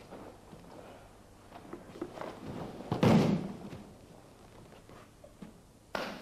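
Judoka rolling over together onto a tatami mat: gi cloth rustling, then one heavy thud of bodies landing about three seconds in. A sharper knock follows near the end.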